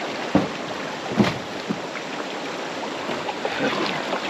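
Fast, shallow creek water rushing over rocks around a kayak, with kayak paddle strokes in the water. Two dull thumps come about half a second and a second in.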